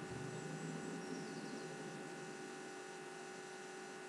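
Steady electrical hum with faint hiss, a low background drone with no other events.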